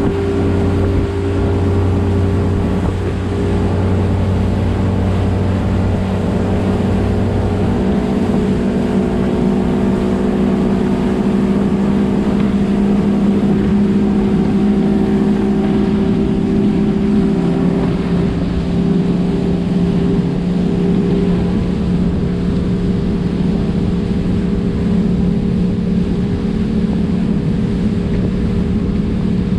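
Engine of a 20-foot Wellcraft center-console boat running steadily under way, its pitch easing down slightly a little past halfway.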